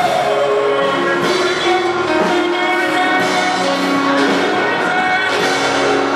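Church choir singing a gospel song with instrumental accompaniment, holding long sung notes.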